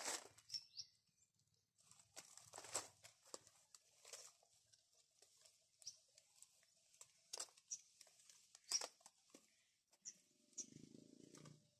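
Faint rustling of duhat (Java plum) leaves and twigs as a branch is pulled by hand, with a scatter of separate short crackles.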